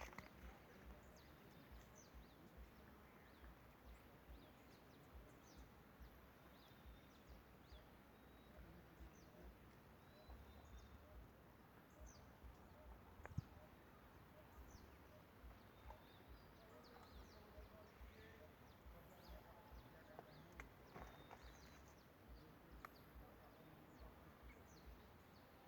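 Near silence: faint outdoor ambience with scattered short, high bird chirps and one sharp click about halfway through.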